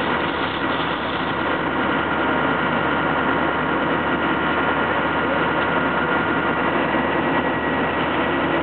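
An engine running steadily at an unchanging pitch, with a faint steady high whine over it.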